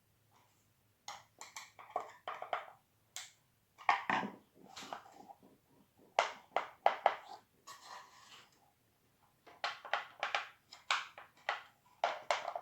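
Irregular clusters of small clicks and knocks from tools and parts being handled while the little bolts holding a new keyboard onto a melodeon are tightened, with one duller thump about four seconds in.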